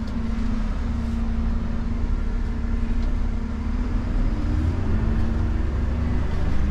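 Dennis Eagle Elite refuse truck being driven, heard from inside the cab: a steady low engine rumble with a constant hum.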